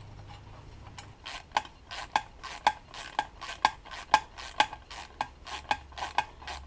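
Wrench tightening a nut on a Solex 3800 moped's frame, gently, not forced: a run of short metallic clicks, about two to three a second.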